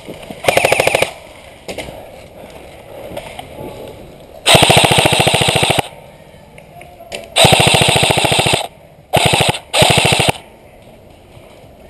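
Airsoft rifle firing close by on full auto: five rapid bursts of evenly spaced shots, the longest just over a second, two of them short and close together near the end.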